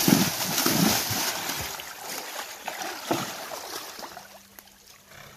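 Draft horse pawing at shallow creek water with a front hoof, several loud splashes in the first second and a half. The splashing then dies down to quieter water movement, with one more splash about three seconds in.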